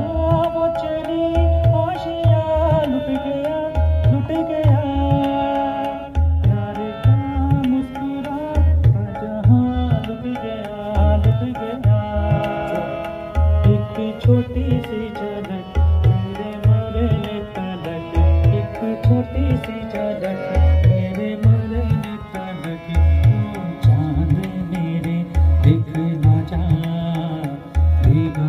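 Live South Asian song: a man singing over a Yamaha electronic keyboard, backed by a steady tabla-style drum beat.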